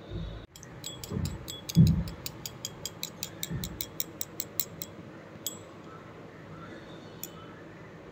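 A rapid run of light, ringing clinks, about five a second, with a few dull knocks among them; it stops about five seconds in, followed by two single clinks.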